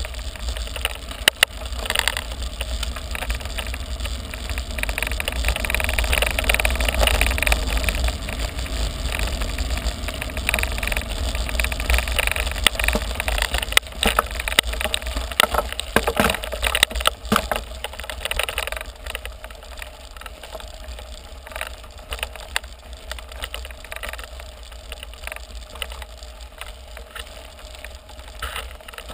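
Mountain bike ridden uphill on a loose gravel road: tyres crunching over the stones with scattered rattles and knocks from the bike, over a low wind rumble on the microphone. The noise eases about two-thirds of the way through.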